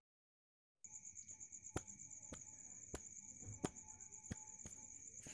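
Faint steady high chirring of insects, starting after a moment of silence, with light footsteps on a paved path about every half second.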